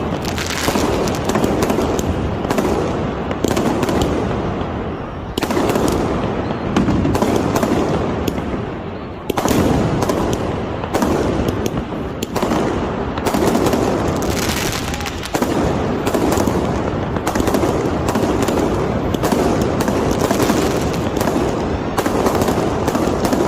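Aerial fireworks going off in quick succession: a new loud burst every second or two, with dense crackling and popping in between.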